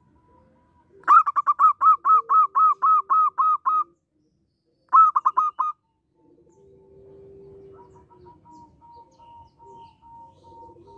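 Zebra dove giving a fast run of about a dozen short, staccato coos about a second in, then a shorter burst of four near the middle. Fainter drawn-out bird calls carry on behind.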